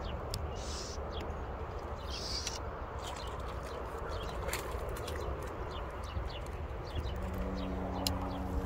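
A small hooked largemouth bass splashing at the water's surface as it is drawn in on a fly line, with scattered light clicks over a steady low rumble.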